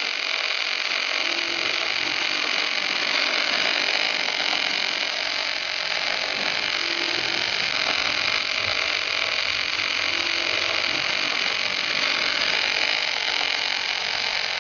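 Steady hiss of the welding arcs on an HK-6A-II portable welding tractor running its two torches along a fillet seam, loud and unchanging.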